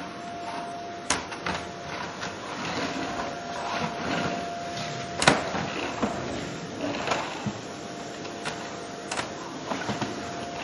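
Vacuum cleaner running on a wooden floor, a steady whooshing hum with a faint whine, as the nozzle is pushed about and knocks against the boards a few times, loudest about five seconds in.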